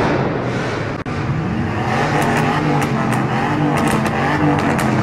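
Vehicle engines running and revving inside a tunnel, with a wavering engine note rising and falling over steady road and wind noise from the open car window.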